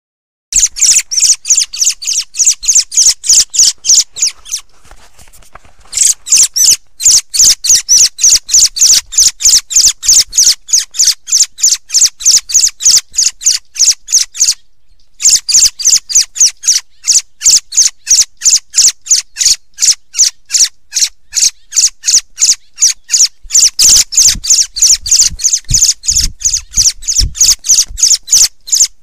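Thrush (zorzal) call used as a hunting lure: sharp high notes repeated rapidly, about four a second, in long runs broken by two short pauses, one a few seconds in and one about halfway.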